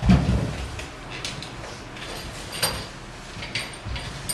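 A heavy thump right at the start, then scattered light knocks and clicks over a steady low room hum.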